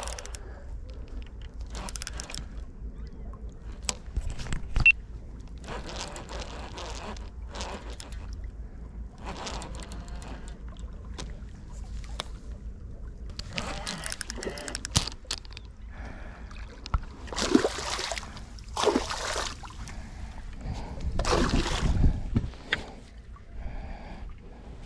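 Water splashing against shoreline rocks as a hooked pike is fought and reeled into the shallows, with wind rumbling on the microphone. The splashes come louder and closer together in the second half as the fish nears the shore.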